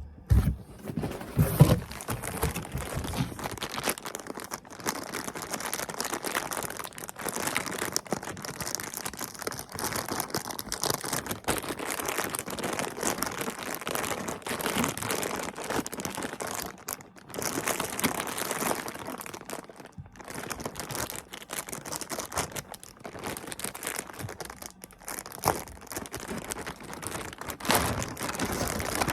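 Packaging crinkling and rustling as it is handled and pulled open, with many small crackles and a few knocks near the start.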